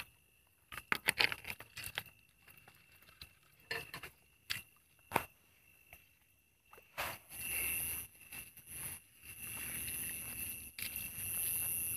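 Freshwater snail shells clicking and knocking against one another and the basket as a cluster of snails is scooped from shallow water, in a few separate clicks. About seven seconds in come longer stretches of splashing and rustling through wet grass.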